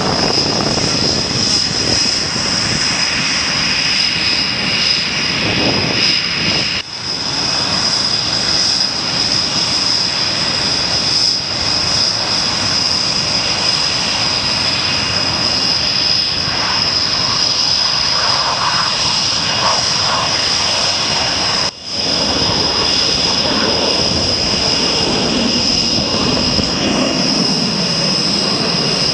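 Military jet engines running: a steady, loud noise with a constant high-pitched whine, dropping off briefly twice.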